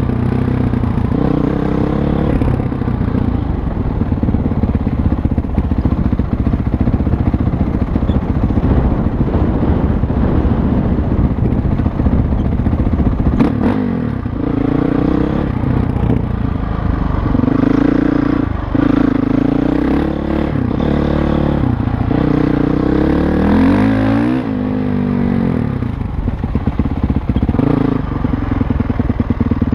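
Dirt bike engine running hard along a trail, its pitch rising and falling again and again as the throttle is opened and closed.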